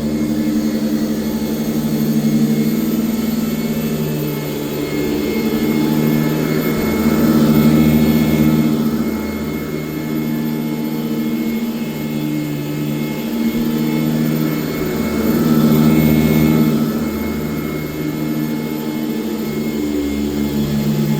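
1996 Sanitaire S663 vacuum cleaner running steadily while being pushed back and forth, its loud motor hum swelling and easing every couple of seconds with the strokes.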